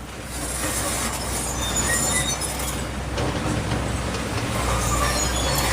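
Excavator running, a steady mechanical noise with a low hum that grows louder in the first second, with short high metallic squeals scattered through it.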